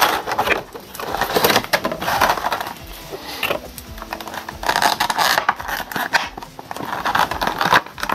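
Clear plastic blister tray crinkling and crackling in irregular bursts as it is handled and a Funko Pop vinyl figure is pulled out of it.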